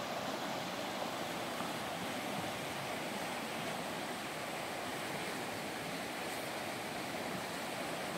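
Shallow river rushing over rocky rapids, a steady, even rush of water.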